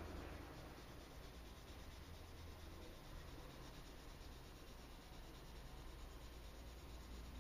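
Faint pencil strokes scratching and rubbing on drawing paper as the hand shades, over a low steady hum.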